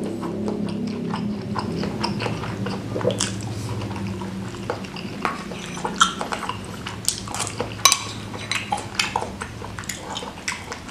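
Eating at close range: chewing and mouth sounds, with a metal spoon clinking and scraping against a ceramic bowl of soupy seblak. The sharpest clinks come about six and eight seconds in.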